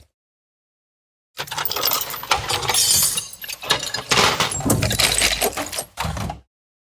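Tools rattling and clinking together in a toolbox as it is rummaged through. This is a dense, irregular run of clinks that starts about a second and a half in and stops shortly before the end.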